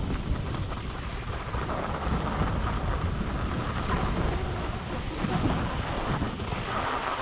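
Wind rushing and buffeting over the camera microphone of a skier moving downhill, with the skis scraping on the snow.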